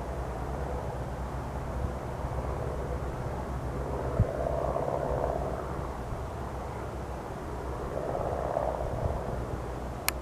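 Cessna 172R Skyhawk's four-cylinder Lycoming piston engine droning at climb power as the plane flies away after take-off, swelling twice in strength. A sharp click comes near the end.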